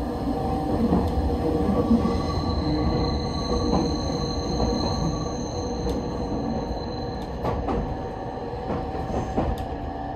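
Train wheels squealing against the rails on a sharp curve: a high, steady screech that sets in about two seconds in and lasts about five seconds, over the running rumble of the carriage. A few sharp clicks of rail joints follow, heard from inside the car.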